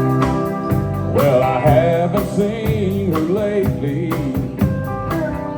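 Country band playing the instrumental intro of a honky-tonk song: drums keep a steady beat under bass and guitar, and from about a second in a lead instrument plays a melody that slides and bends in pitch.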